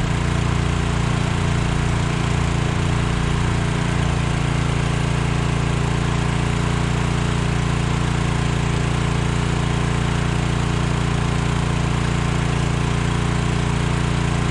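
An engine running steadily at a constant speed. Its low note wavers for the first few seconds, then settles.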